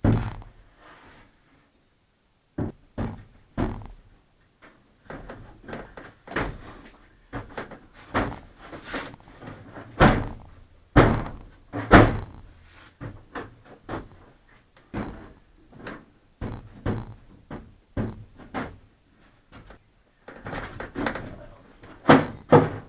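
A run of irregular thunks and knocks, roughly one or two a second, with a short pause near the start.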